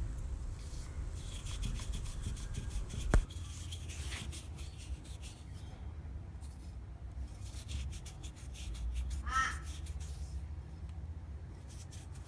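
Rapid rubbing strokes as a small metal badge is buffed with baking soda, over a low steady hum, with a sharp click about three seconds in and a short call near the end.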